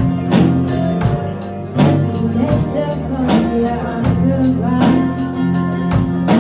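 Live pop-rock band playing a ballad between sung lines, with sustained bass and guitar chords and a drum hit about every one and a half seconds.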